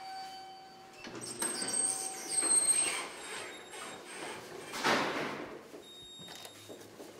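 Elevator chime ringing, then the elevator's sliding doors moving. The loudest swell of door and car noise comes about five seconds in.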